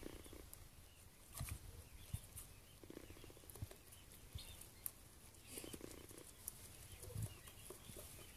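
Goat nosing and eating sliced squash from a plastic bowl: faint snuffling and scattered small clicks and rustles, quiet throughout.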